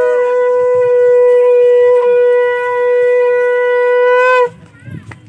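Conch shell (shankha) blown: one loud, long, steady note that breaks off with a slight upward bend about four and a half seconds in.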